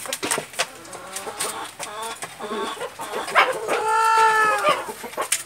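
Indio Gigante rooster crowing. A few short sliding notes lead into one long drawn-out note, about a second and a half long, that rises and then falls, a little past halfway through.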